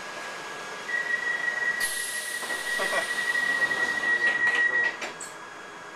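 London Underground Piccadilly line 1973 Tube Stock train's doors closing: a steady high warning tone sounds for about four seconds while air hisses and the sliding doors run shut, ending in a few clunks as the door leaves meet.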